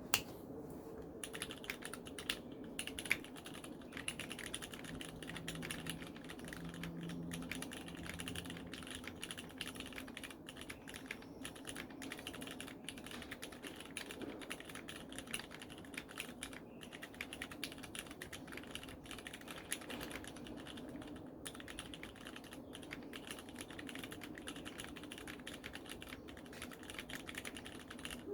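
Typing on a Tofu 65 mechanical keyboard fitted with Cherry MX Hyperglide Brown tactile switches: a continuous, irregular run of key clicks.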